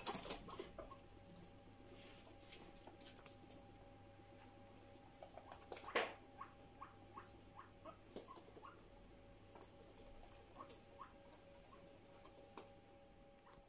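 Guinea pig making faint, short squeaks scattered through, with one sharper click about six seconds in, over a faint steady hum.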